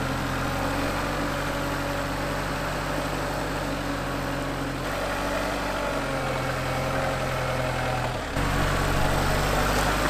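Kubota L4060 compact tractor's diesel engine idling just after starting. About eight seconds in, its note changes and it gets a little louder.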